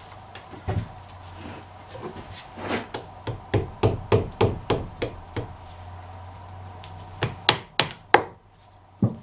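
Hand tools clicking and tapping against steel axle parts as a bent cotter pin is worked out. There is a quick run of about a dozen taps in the middle, then a few louder knocks near the end.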